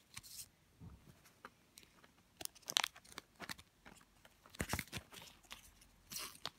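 Plastic and paper toy packaging crinkling and tearing as it is pulled open by hand, in scattered short crackles, the loudest about three and five seconds in.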